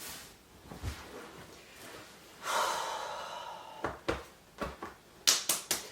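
A long breath out, followed by a string of sharp clicks, the three loudest in quick succession near the end.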